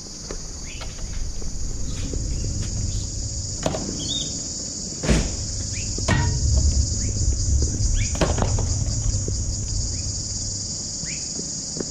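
Steady high-pitched insect chorus, with a low rumble underneath. A few sharp knocks, the loudest about five and six seconds in.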